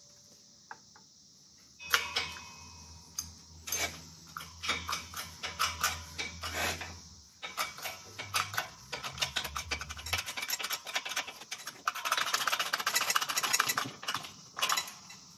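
Light metal clicks, knocks and rubbing as a steering column and its new lower bearing race are positioned in a bottle-jack hydraulic shop press, with a denser run of rapid clicking about twelve seconds in. A low hum starts about two seconds in and stops about ten seconds in.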